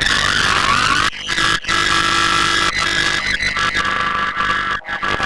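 Loud, harsh electronic alarm tones of a mock Emergency Alert System alarm, several steady pitches at once, with a pitch sweep in the first second and brief cutouts about a second in and near the end.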